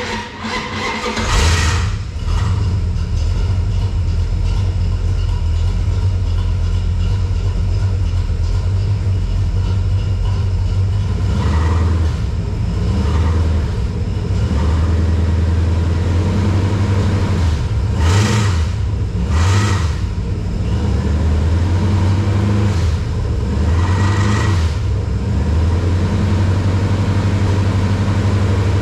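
Dodge D100 truck's small-block V8 starting up and catching within about a second and a half, then idling steadily with a few short throttle blips.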